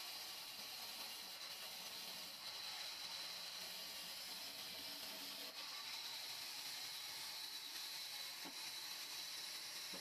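Large vertical band saw running as its blade cuts through a log: a steady, even hiss.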